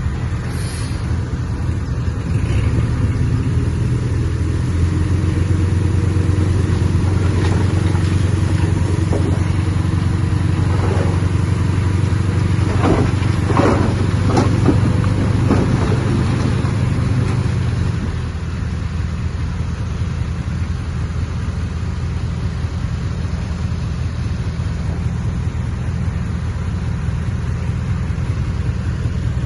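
Heavy diesel engine of earthmoving machinery running steadily under load, with a series of clanks and scrapes around the middle. The engine eases off and runs a little quieter for the last third.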